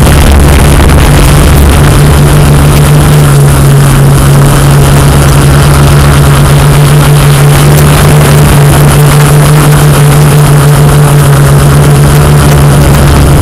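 Multirotor drone's motors and propellers humming steadily at one unchanging pitch, loud and close on the aircraft's own microphone.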